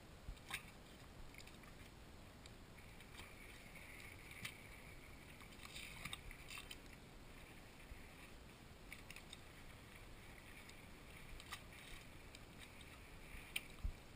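Quiet, gentle lapping of sea water against a moored skiff and jetty, with a few faint ticks and small surface splashes.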